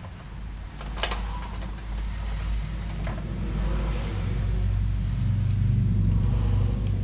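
A motor vehicle's engine running nearby, a steady low hum that grows louder over the last few seconds, with a sharp metallic click about a second in.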